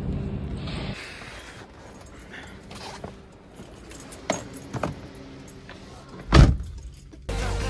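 Small clicks and handling noises inside a car, then a car door shutting with one heavy thump about six seconds in. Music starts just before the end.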